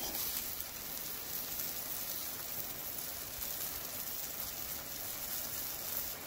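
Coconut milk simmering in a saucepan, a steady bubbling hiss as it cooks down to thicken into rundown sauce.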